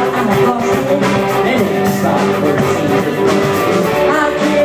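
A rock trio playing live: electric guitar, electric bass and a drum kit, loud and continuous.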